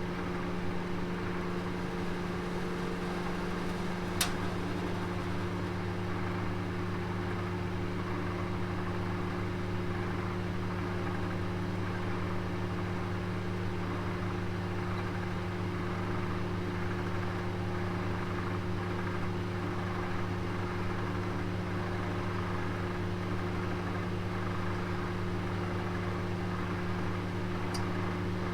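Oven running with a steady electrical hum and fan whir. A single sharp click about four seconds in.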